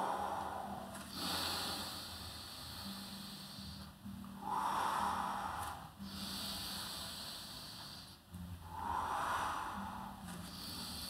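A woman's deep, audible Pilates breathing: three slow breath cycles, each a shorter breath followed by a longer hissing one.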